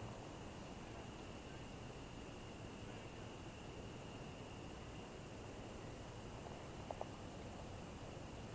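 Steady evening chorus of crickets and other insects: a continuous high, shrill trill with a fainter, lower steady trill beneath it. Two faint short clicks about seven seconds in.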